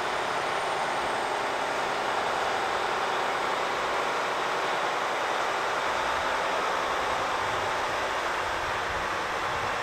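Heavy-haulage lorry driving slowly past, pulling a low-loader that carries a steam locomotive, with a steady running noise. A low rumble grows from about two-thirds of the way through as the lorry comes nearer.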